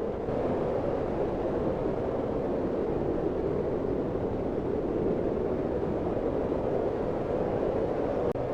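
Steady snowstorm wind, an even rushing noise that sits mostly low to mid in pitch, with a momentary break near the end.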